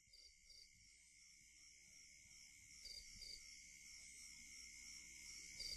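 Near silence: faint hiss with a steady high-pitched tone, growing slightly louder toward the end.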